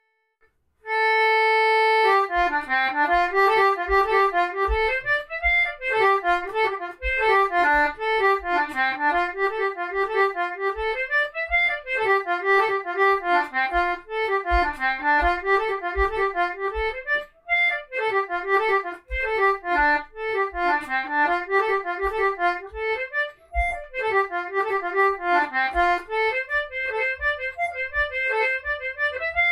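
Bb/F concertina playing a lively hornpipe: a held opening chord, then a quick stream of reedy notes. Soft low thuds keep time under the tune.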